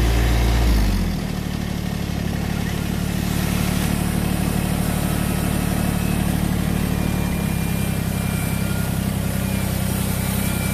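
Engine of the vehicle carrying the camera running steadily as it drives along, its note dropping and quieting about a second in and shifting again about seven seconds in.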